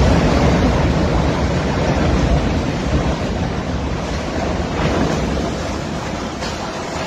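Wind buffeting a phone's microphone: a loud, steady rushing noise with a low rumble that slowly fades.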